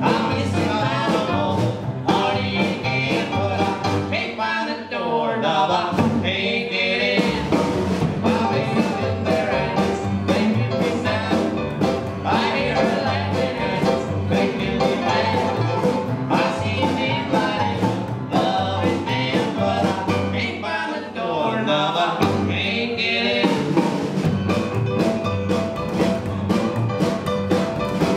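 Live rock and roll band playing: two men singing together in harmony at one microphone, over guitar, upright bass and drums.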